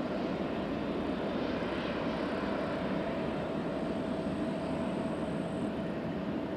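Airbus A319-114's twin CFM56 turbofan engines running at low taxi thrust: a steady rumble with a thin, steady whine over it.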